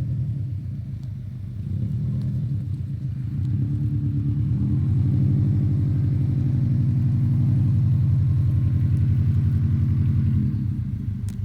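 Subaru Forester's flat-four boxer engine running under load while driving off-road, a low pulsing rumble that grows louder about four seconds in and eases off shortly before the end.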